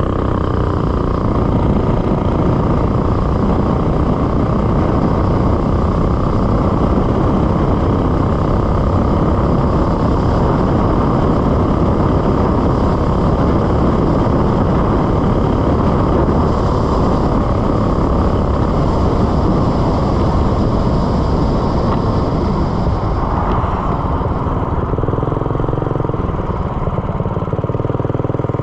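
Small engine with an aftermarket header exhaust and stainless AR Sport muffler running hard at speed, its governor disconnected and a better carburetor fitted, reaching about 4,300 RPM. It runs loud and steady, then eases off a few seconds before the end.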